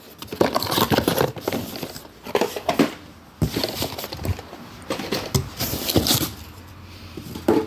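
Rustling and crinkling of plastic packaging with irregular small knocks and clicks, as parts are handled and dug out of a box.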